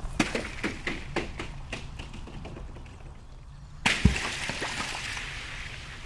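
Water splashing: a run of irregular sharp splashes and drips, then a sudden louder rush of splashing with a low thud about four seconds in.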